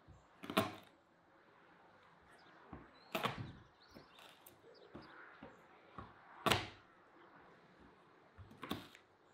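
Garlic cloves being crushed under the flat of a kitchen knife on a wooden cutting board: four sharp thuds a few seconds apart, with lighter knocks of the knife against the board between them.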